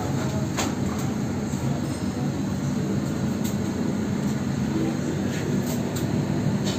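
Rational whitefficiency combi oven running while it bakes, its convection fan giving a steady hum and rush, with a few faint clicks.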